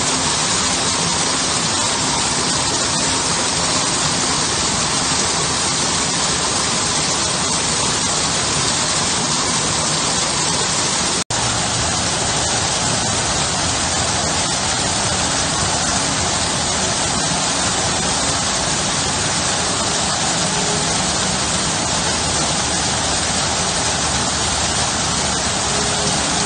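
Garden waterfall splashing steadily into a stone-lined pool, an even rushing of water with a split-second dropout about eleven seconds in.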